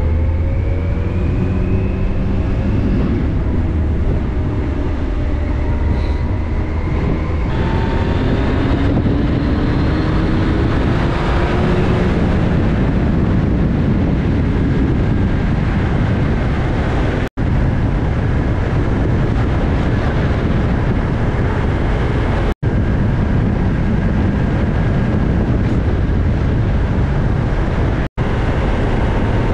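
Motorcycle engine accelerating through the gears, its pitch climbing and stepping down at each shift, then settling into a steady drone buried in loud wind rush at road speed. The sound cuts out for an instant three times.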